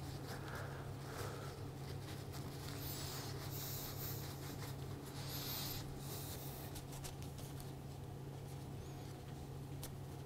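A white rag rubbed and twisted around a small waxed screw, buffing wax into its threads: faint, soft scratchy rubbing strokes, a couple of them sharper, over a steady low hum.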